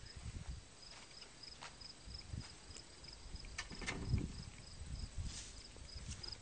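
Low thumps and rustling of a man taking a rabbit out of a wooden hutch and walking off with it, with a few sharp clicks and knocks about three and a half to four seconds in. An insect chirps steadily in the background, about three chirps a second.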